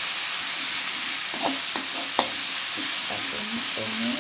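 Ground spice paste sizzling in hot oil in a metal wok while a spatula stirs it. The spatula clicks and scrapes against the pan a few times, most sharply about halfway through.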